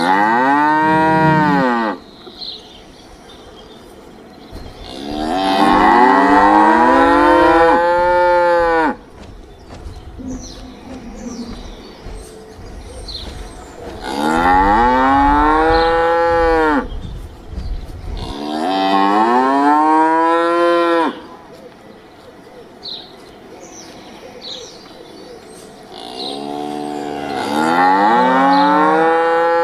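Cattle mooing: five long moos with pauses between them, each rising and then falling in pitch.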